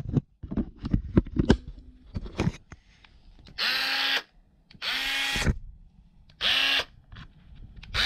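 Craftsman Nextec 12-volt Hammerhead auto hammer run free in three short buzzing bursts of about half a second each, each starting with a quick rise in pitch as the motor spins up. Clicks and knocks of the tool being handled come first.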